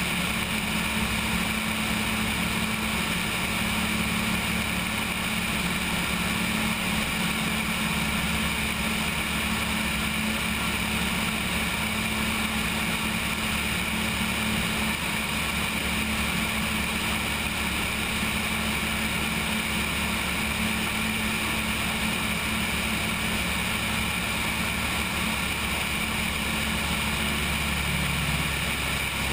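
Cessna 172's engine and propeller running steadily in level flight, heard from a camera mounted on the wing, with wind rushing over it.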